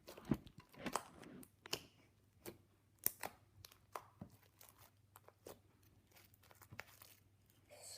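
Beaded slime being worked with the hands up close, giving irregular sticky pops and crackles, with a few louder snaps among them.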